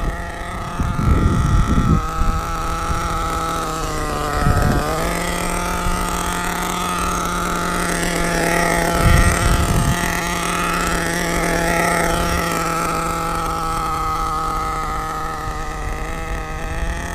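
HPI Savage X 4.6cc Big Block nitro engine running steadily at low throttle during an early run after break-in. Its pitch dips sharply about four and a half seconds in and then recovers. A few low thumps come about a second in and around nine seconds in.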